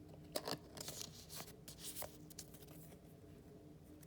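Faint rustles and soft taps of cardboard and card packaging being handled, a handful of short ones in the first two and a half seconds, over a faint steady hum.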